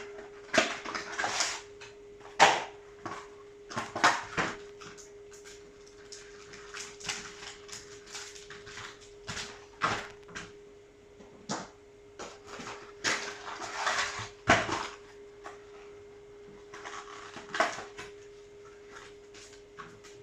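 Yu-Gi-Oh! trading cards and their packaging being handled: irregular rustles and light snaps every second or so, with a faint steady hum underneath.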